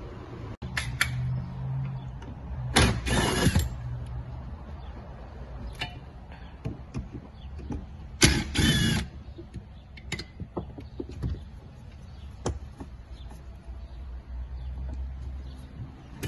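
Cordless drill-driver whirring in two short bursts, about three seconds in and again about eight seconds in, backing out fasteners from a cargo-area trim panel. Scattered knocks and clicks of parts being handled in between.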